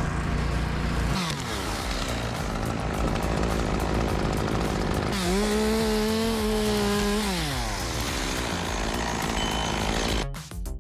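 Chainsaw running: the throttle drops off about a second in, then it revs up again about five seconds in, holds at high speed for around two seconds and falls back.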